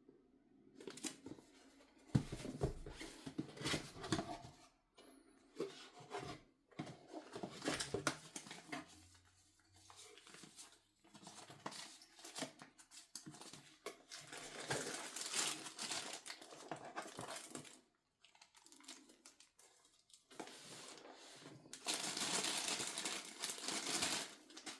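Packaging being handled and opened by hand: irregular rustling and crinkling with scattered knocks and clicks, and a longer stretch of steady rustle near the end.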